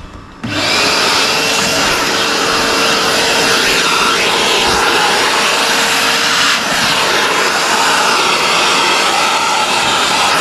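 A loud electric power tool switches on abruptly about half a second in and runs steadily, with a faint steady whine under the noise for several seconds.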